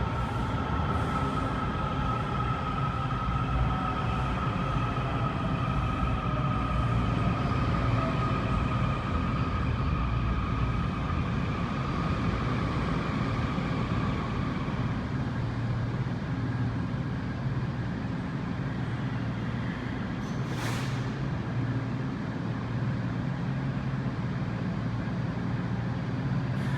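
Washington Metrorail train heard from inside the car, running with a steady low rumble and an electric traction-motor whine that falls slowly in pitch and fades out about halfway through as the train slows. A short hiss comes about 21 seconds in.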